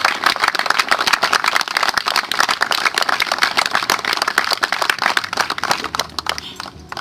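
Audience applauding: dense, many-handed clapping that thins out and fades away near the end.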